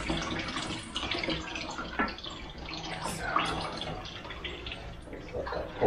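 Leftover coolant trickling and splashing out of a car radiator into a drain pan as the radiator is lifted out, with a light knock about two seconds in.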